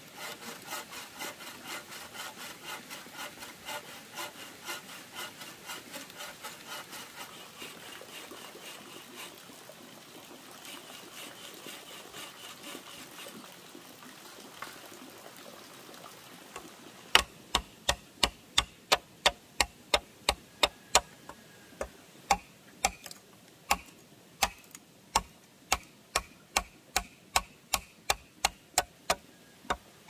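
Hand saw cutting through wood in rapid, even strokes for about the first half, fading out. From about halfway on, a run of sharp, loud knocks about two a second.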